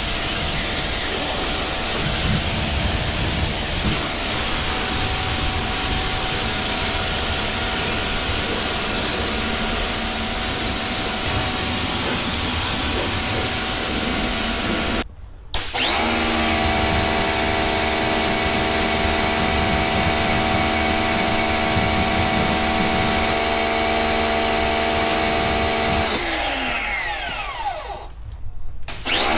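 Tooluck electric pressure washer spraying water through its 25-degree nozzle: a loud, steady hiss of the jet over the pump motor. After a brief break about halfway, the motor runs with a steady whine. Near the end it winds down with a falling pitch, then starts up again right at the close.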